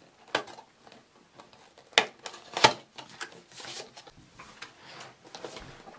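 Handling noise as packaging is moved about on a table: a few sharp taps and knocks, the loudest about two seconds in and again just after, with soft rustling between.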